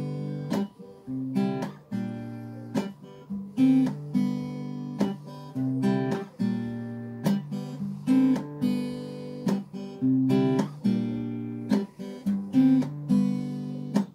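Acoustic guitar strummed in a repeating rhythmic chord pattern, each stroke a sharp attack that rings on.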